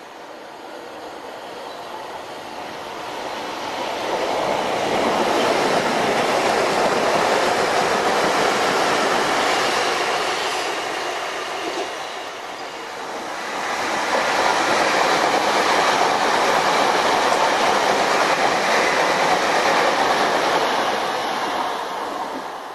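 Electric commuter trains running past on the rails: a steady rush of wheel and rail noise with no engine note. It swells loud about four seconds in, eases off, then swells again about fourteen seconds in as a train passes, and fades near the end.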